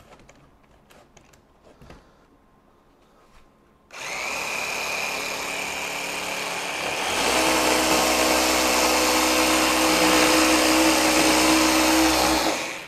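Festool PSC 420 Carvex 18-volt brushless cordless jigsaw switched on about four seconds in, running at a lower speed, then stepping up louder about three seconds later as its auto mode ramps up with the blade in the wood. It is cutting 3/4-inch plywood on its most aggressive orbital stroke setting, and it stops near the end.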